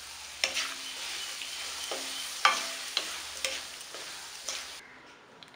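Lovi-lovi fruit halves being stirred with a wooden spatula in hot chilli-spice oil in a pan: a steady sizzle, broken by a few knocks and scrapes of the spatula against the pan. The sizzle stops suddenly near the end.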